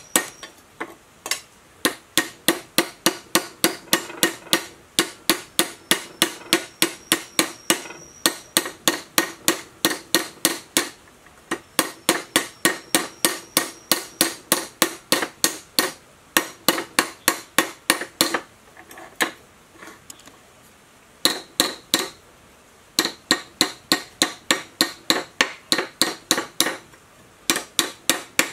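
Claw hammer striking a steel sword blade laid on the anvil of a bench vise: rapid ringing metal-on-metal blows, about four a second, in runs broken by a few short pauses.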